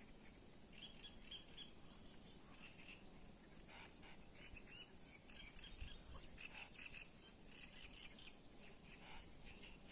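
Faint birdsong: small birds chirping and twittering in quick, irregular phrases over quiet outdoor background noise.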